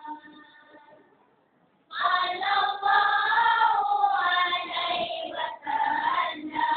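A group of boys singing marhaban, a Malay devotional chant, together. A phrase dies away just after the start, there is a pause of about a second and a half, and the group comes back in about two seconds in and sings on.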